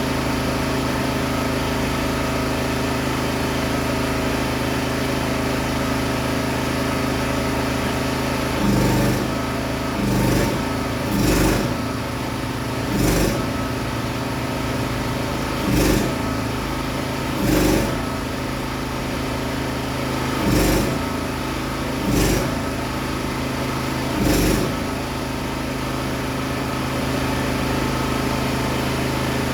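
An engine running steadily, with about nine short, louder surges spread across the middle of the stretch.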